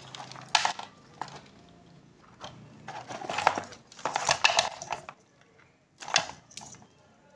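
Handling noise: rustling and light clatters of objects being picked up and moved, in several short irregular bursts.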